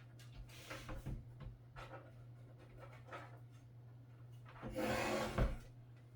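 Hands handling and rubbing cables against a PC case while front-panel connectors are routed, with short rustling scrapes and a louder scraping rub about five seconds in that ends with a knock.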